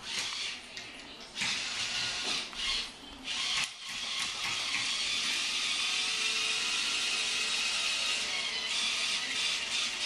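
Remote-control toy spider's small electric motor and gears whirring as it walks. The whirring comes in short bursts at first, then runs steadily from about four seconds in.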